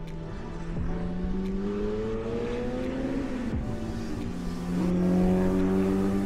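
Distant race cars on a track accelerating along a straight, their engine note climbing in pitch; a second car comes in louder about five seconds in.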